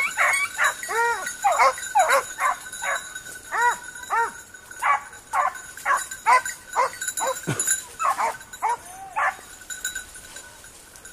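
Basset Griffon Vendéen hound baying in quick, repeated high cries that thin out and stop near the end. This is the hound giving tongue as it works a scent through the brush.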